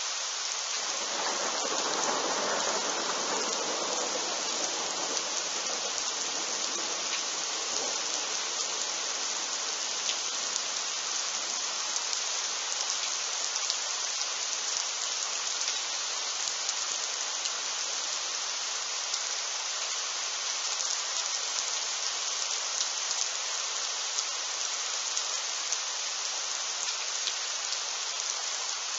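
Steady heavy rain hissing on surfaces. About a second in, a duller rumble swells under the rain and dies away over several seconds.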